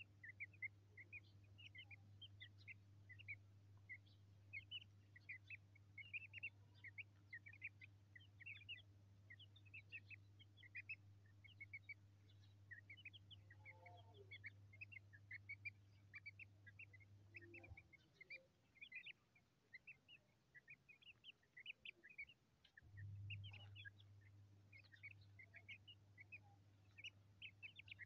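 Chicks peeping faintly and continuously, many short high peeps a second. Behind them runs a steady low hum that cuts out for about five seconds past the middle, then returns.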